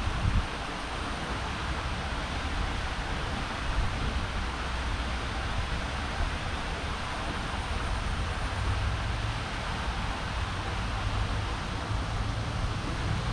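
Steady outdoor background noise: an even hiss over a low rumble, with no distinct event standing out.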